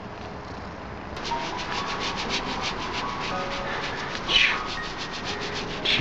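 Rapid rhythmic scratching against a window, about six strokes a second, starting about a second in, with a brief high squeal near the middle.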